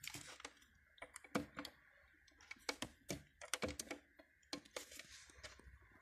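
Irregular small plastic clicks and taps from hands handling a Renault Megane 2 heater blower fan motor and pushing its wiring connector into place. The motor itself does not run.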